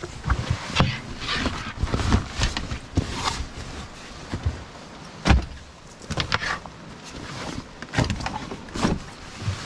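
Camping gear being loaded into a car: bags and bedding rustling and bumping against the seats and a plastic cooler, with irregular knocks and one heavier thud about five seconds in.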